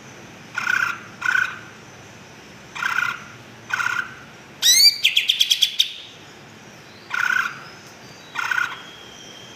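Cucak ijo (green leafbird) singing: short call notes repeated every second or so, and about halfway through a loud rising phrase that runs into a rapid string of notes.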